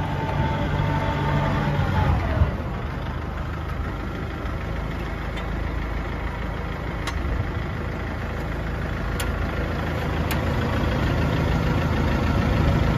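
Kubota MX5200's 54 hp diesel engine running steadily. At first a high whine rides over it and falls away about two seconds in, after which the engine settles to a steady idle with a few faint clicks.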